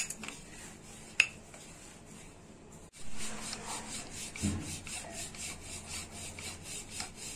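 Wooden rolling pin rolling out a stuffed paratha on a floured rolling board: a rhythmic rubbing swish, a few strokes a second, starting about three seconds in. Before it, quieter hand-pressing of the dough with a couple of light clicks.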